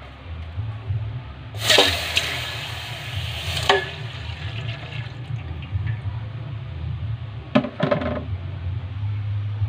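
Coconut milk poured from a china dish into a stainless steel pot: a splashing pour lasting about two seconds, over a steady low hum. A few short knocks follow near the end.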